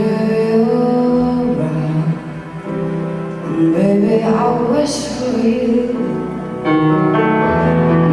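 Grand piano played live in slow held chords, with a woman singing over it.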